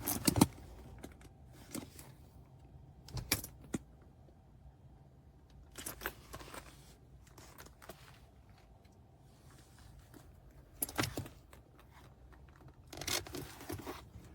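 Scattered light clicks and rustles at irregular intervals, as of boots being handled, with small metallic clinks.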